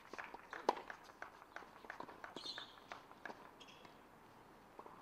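Scattered light taps and footsteps on a hard tennis court, with one sharper knock a little under a second in and a brief high chirp about halfway through.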